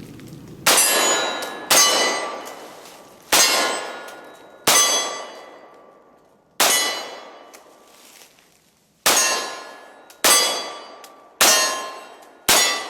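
Nine shots from a Glock Model 30 .45 ACP pistol at an uneven pace, each hitting a steel target that rings and dies away. The shots come in clusters: two, then two, then one, then four close together near the end.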